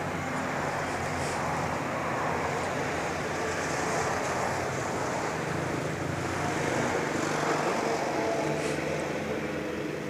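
Steady outdoor background noise with a low hum, of the kind passing road traffic makes, over faint rustling of soil and dry straw being handled by hand.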